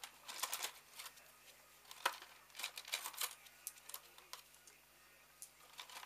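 Irregular light clicks and taps of small engine valvetrain parts being handled, several a second in uneven clusters.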